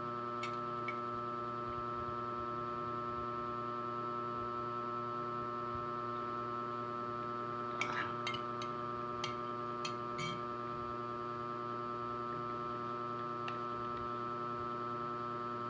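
Steady electrical hum, with a few light clicks, a pair near the start and a small cluster about eight to ten seconds in, as small objects on the table are handled.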